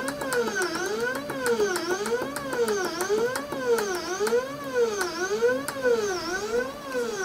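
3018 Pro desktop CNC's stepper motors whining through a string of short jog moves keyed in one after another on its offline controller, about one and a half a second. Each move is a pitch that rises as the axis speeds up and falls as it slows down again.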